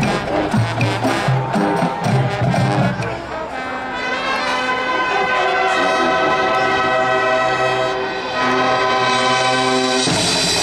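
High school marching band playing: a quick drum-driven rhythm under the band at first, then the brass (trumpets, trombones, horns) holding long, loud chords from about four seconds in, with the drums coming back in near the end.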